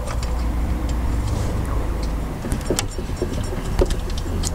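Scattered light clicks and knocks of hands and parts being handled around the engine's belt pulleys and alternator, over a steady low rumble.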